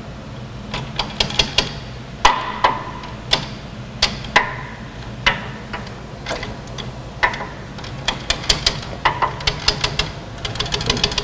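Hammer blows on a socket extension used as a punch to knock parts out of a forklift's front end: sharp metal-on-metal strikes at an uneven pace. Some are single heavier hits with a short ring, others come in quick runs of light taps, about a second in and again toward the end.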